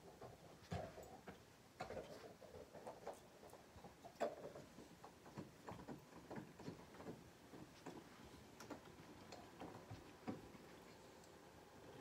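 A Rottweiler and a shih-poo chewing on chew bones: faint, irregular clicks and scrapes of teeth on bone.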